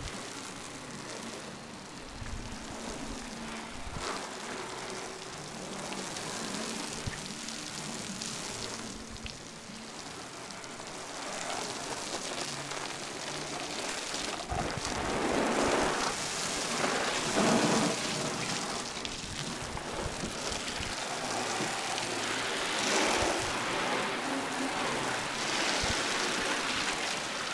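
Hose spray splashing and spattering onto a fiberglass boat's deck, seats and hull, swelling and fading as the jet sweeps across, louder in the second half.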